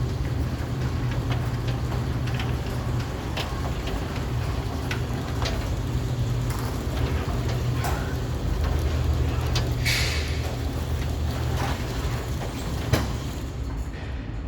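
LiftMaster T501L5 commercial trolley operator running a 12-by-18 Amarr sectional door along its rail: a steady motor hum with the chain and door rattling and clicking. A single sharp clunk comes near the end, after which the hum eases.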